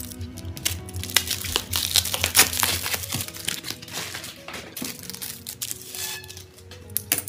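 Packaging being unwrapped, crinkling and rustling in quick irregular crackles, over background music.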